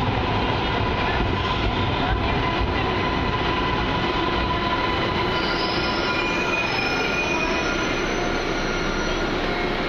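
MARTA rapid-transit train pulling into an underground station platform and slowing to a stop: a steady rumble of the cars rolling past, which eases about halfway through as high squealing tones set in while the train slows.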